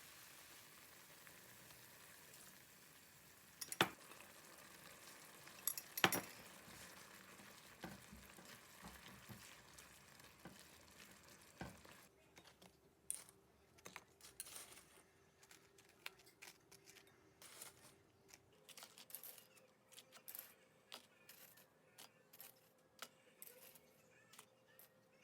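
Food sizzling in a pan with a few sharp clinks, then the sizzle stops and utensils clink and tap against dishes.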